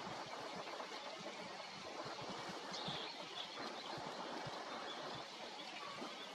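Steady outdoor background noise, like water or wind, with faint low thuds throughout and one brief high chirp about three seconds in.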